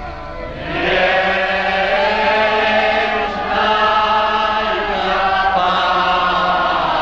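Choir singing an Orthodox Church Slavonic memorial chant in slow, held notes. The singing dips at the start and swells again about a second in.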